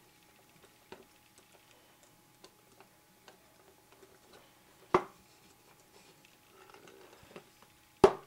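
Small metal parts clicking as a roll pin is fitted into a pistol frame, with one sharp knock about five seconds in. Near the end a small hammer starts tapping the roll pin in, a quick run of sharp taps about four a second.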